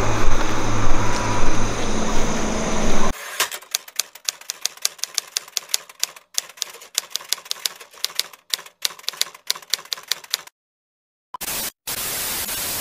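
Typewriter key clicks in a fast, irregular run, a sound effect for on-screen text being typed out. It follows about three seconds of louder steady noise with a low hum, and near the end gives way to bursts of TV static hiss.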